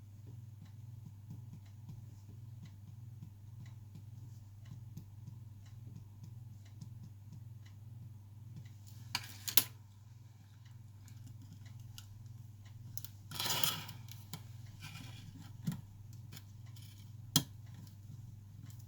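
Small clicks and taps of tools and phone parts being handled on a work surface, with a pair of sharp clicks partway through, a brief scraping rustle a little later and a single sharp click near the end, over a steady low electrical hum.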